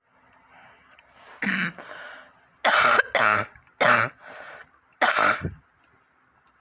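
A person coughing and clearing their throat: about five harsh coughs over some four seconds, with breaths drawn between them. It is a chesty cough with jelly-like phlegm.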